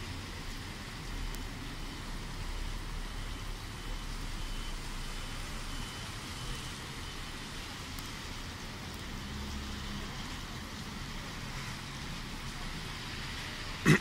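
Steady wash of distant road traffic and wet-street ambience with a low rumble. A sudden sharp knock at the very end.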